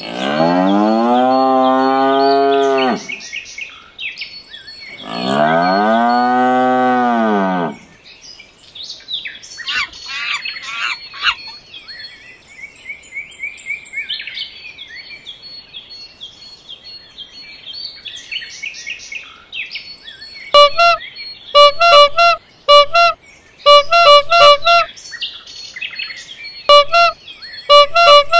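Two long cow moos, a couple of seconds apart, over faint bird chirping. Near the end come quick runs of short, loud, pitched beeping tones.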